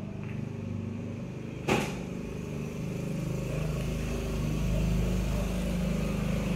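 A motor vehicle engine running steadily, growing louder about three seconds in, with a single sharp knock a little under two seconds in.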